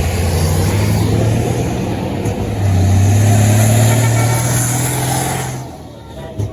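A large tour bus's diesel engine running loud close by, pulling past; it grows louder about two and a half seconds in and dies away near the end.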